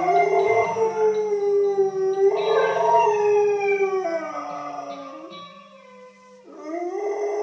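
A dog howling: one long howl that slides slowly down in pitch and dies away after about five seconds, then a second howl rises near the end. Music plays quietly underneath.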